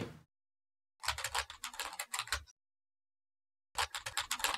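Computer keyboard typing: two short runs of quick key clicks, the first about a second in and the second near the end, with dead silence before and between.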